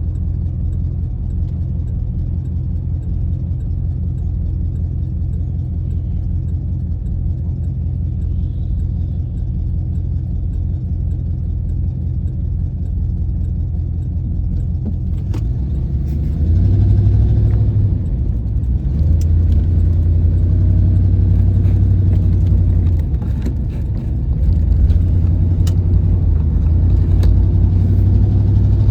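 1996 Chevrolet Impala SS's LT1 V8 and exhaust while driving: a steady low drone, then the engine pulling harder about halfway through, easing off twice briefly and climbing again. The owner suspects an exhaust leak.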